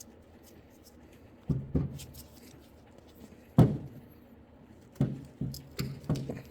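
Tools and small metal parts of a throttle body knocking and clicking as they are handled and set down during disassembly. There is a string of separate knocks, the loudest about halfway through, with a quick cluster near the end.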